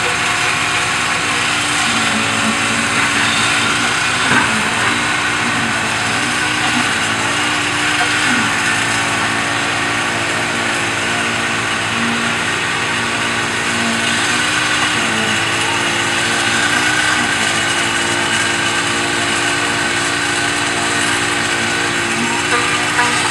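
Concrete mixer truck's diesel engine running steadily while its drum turns, discharging concrete down the chute. The engine note shifts up and down a little every second or two, with one light knock about four seconds in.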